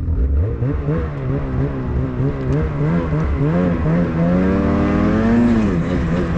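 Engine revving up just after the start and then running hard under load, its pitch wavering up and down every half second or so, with one longer rise and fall near the end, as it begins a pull.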